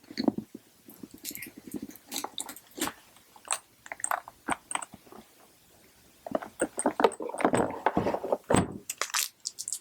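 Irregular clicks, taps and rustling of objects being handled close to the microphone, busiest about three quarters of the way through.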